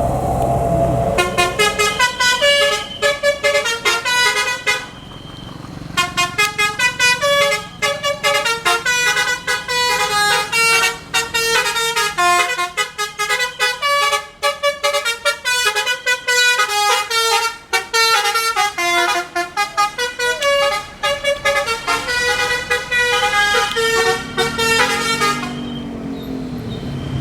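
Bus telolet horn, a multi-tone musical air horn, playing a fast melody of short notes that changes pitch several times a second. It starts about a second in, pauses briefly, then plays on and stops near the end.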